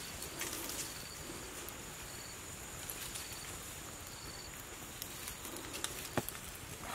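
Small wood fire crackling with a few sharp pops near the end, while a duck is held in the flames to singe its feathers. Short high wildlife chirps repeat in the background through the first half.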